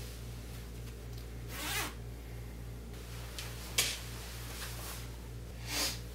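Three brief zip-like swishes of clothing about two seconds apart, the middle one the sharpest, over a steady low electrical hum.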